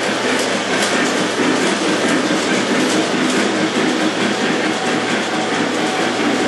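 Lionel O-gauge model train running on three-rail tin-plate track: a steady rolling rumble with light clicking over the rail joints, over a low electrical hum.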